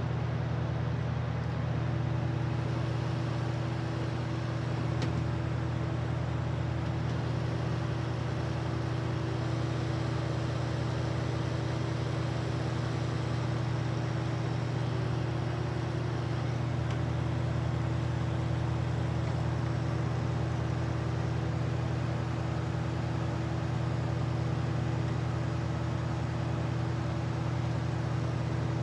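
Westinghouse 8-inch Riviera electric fan running steadily on its high setting: a steady rush of air from the blades over a constant low hum.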